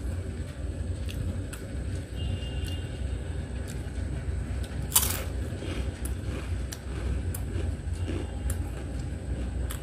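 Crisp fried chips bitten and chewed close to the microphone, with one loud, sharp crunch about five seconds in and fainter crackles either side, over a steady low rumble.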